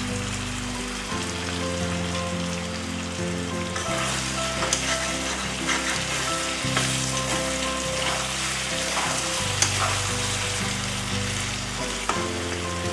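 Pork pieces, potatoes and spice masala sizzling in oil in a kadai over a gas flame, with a spatula scraping and stirring them from about four seconds in. The masala is being fried until it catches on the bottom of the pan.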